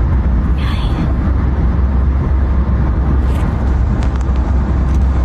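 Steady low rumble of a moving vehicle, with a short hissing burst about half a second in and a fainter one a little after three seconds.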